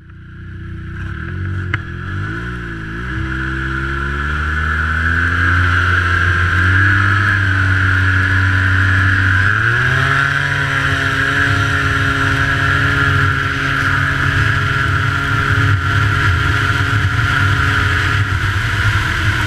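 Snowmobile engine pulled to full throttle, climbing in pitch over the first few seconds and then held at high speed, with a steady high whine throughout; the pitch rises again about ten seconds in and stays there.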